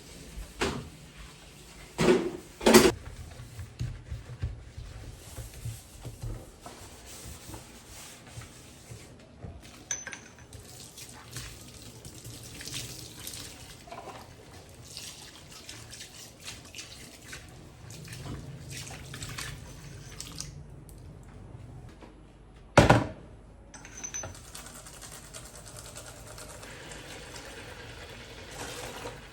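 Tap water running and splashing in a sink as things are washed, with scattered clinks and a few sharp loud knocks: two close together a few seconds in and one more about three-quarters of the way through.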